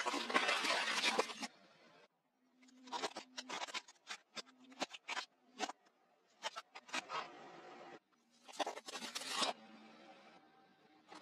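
Objects being crushed: four bursts of crunching and cracking, the middle ones broken up into many sharp snaps and crackles, with a faint low hum underneath some of them.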